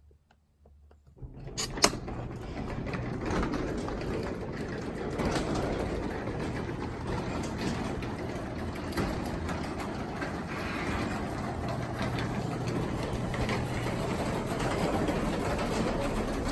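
Craftsman 3/4 horsepower belt-drive garage door opener starting with a click a couple of seconds in, then running steadily with a low hum as it raises the door.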